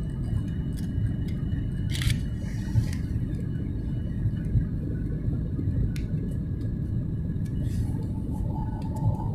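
Steady cabin rumble of a Boeing 737 MAX 8 airliner on approach, heard from a window seat over the wing: engine and airflow noise, deep and unbroken. A few faint clicks sound about two and six seconds in, and a faint steady tone comes in near the end.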